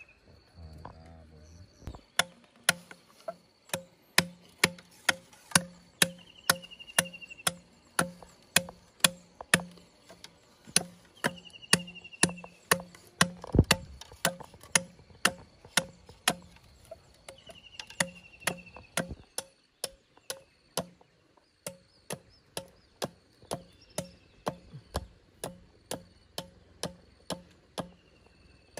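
A machete knocking on bamboo in an even rhythm, about two strikes a second, fainter over the last third. A bird gives a short falling call several times, and a steady faint high insect drone is present.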